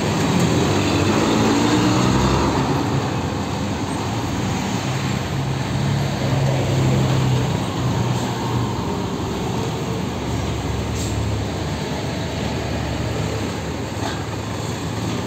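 Engines of large buses running close by as they creep forward in jammed traffic: a steady low engine drone over general road traffic noise.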